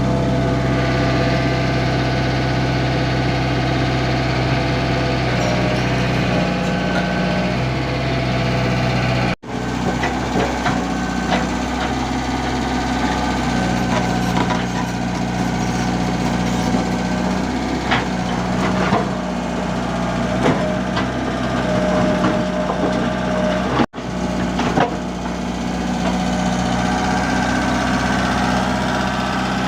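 Komatsu PC75 excavator's diesel engine running steadily, with scattered knocks and clatter from about ten seconds in as it works. The sound drops out for an instant twice.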